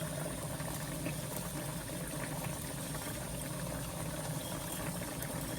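Pork stock seasoned with oyster sauce and soy sauce boiling steadily in a pan, a constant bubbling hiss.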